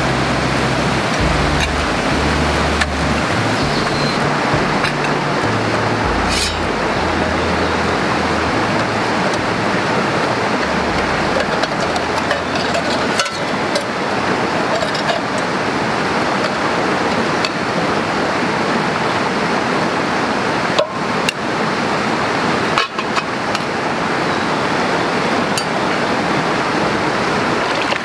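Steady rushing noise of running water, with a few brief knocks.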